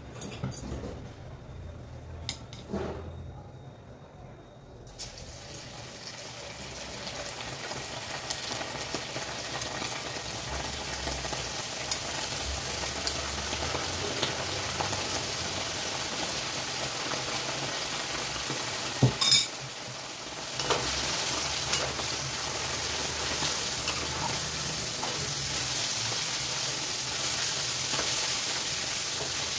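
Pieces of seasoned beef sizzling as they fry in hot oil in a metal pan, the sizzle building over the first several seconds after a few light clicks. A spatula stirs them, with a sharp knock about two-thirds of the way in.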